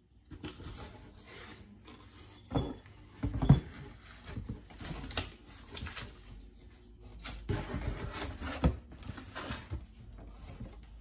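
Rustling and rubbing of paper and cardboard as a card and a cardboard shipping box are handled, with a few sharper knocks, the loudest about three and a half seconds in.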